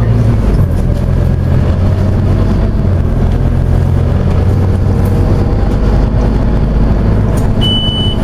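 Scania OmniCity bus's engine running under way with road noise, heard from inside the passenger cabin; the engine note shifts in pitch a couple of times. A short high beep sounds near the end.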